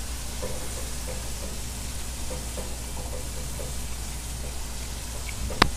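Pieces of fish deep-frying in hot oil, a steady sizzle with small pops. A single sharp click sounds near the end.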